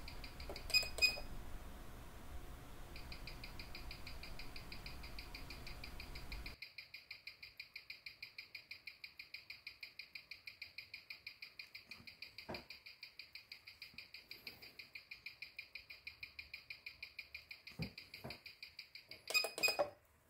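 Waltham size 6 pocket-watch movement ticking at 18,000 beats per hour, about five even ticks a second, amplified by a timegrapher. Short electronic beeps from the timegrapher's buttons come about a second in and again near the end. A few faint clicks fall in between as the regulator is nudged.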